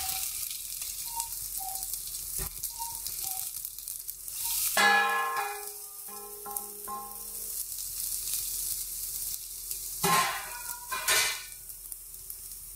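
Coriander seeds, chana dal and red chillies sizzling lightly in oil in a nonstick frying pan while a wooden spatula stirs them. About five seconds in, a metal bowl knocks against the pan and rings for a couple of seconds as grated coconut is tipped in, followed by two more short knocks near the end.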